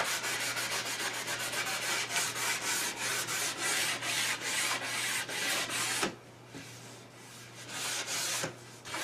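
Hand-sanding the edge of a hardwood board with sandpaper: quick back-and-forth rubbing strokes, about four a second, working off a burn mark left by the saw blade. The strokes stop for nearly three seconds about six seconds in, then start again at the end.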